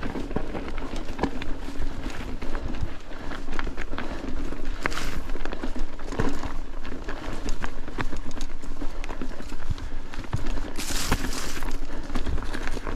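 Mountain bike being ridden over a rough, stony track: tyres crunching and the bike rattling with a constant patter of small knocks, with two short rushes of hiss about five and eleven seconds in.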